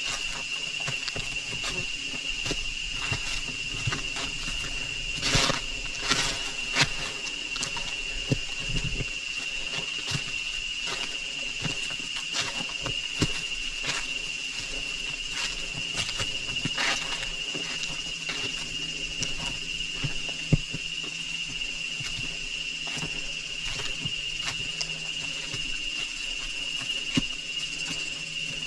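Steady, high-pitched insect drone of the rainforest, one unbroken tone, with scattered sharp clicks and rustles on top, the sharpest about twenty seconds in.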